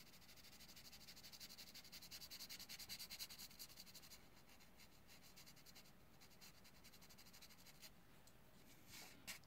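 Black coloured pencil shading lightly on paper: rapid, even back-and-forth scratching strokes, faint, that stop about four seconds in.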